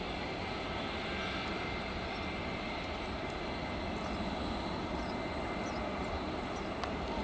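Airbus A321-200 airliner's jet engines running at low power as it taxis, a steady, even noise that neither rises nor falls.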